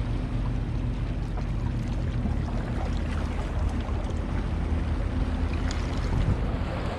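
Steady low motor hum aboard a small fishing boat at sea, with wind and water noise.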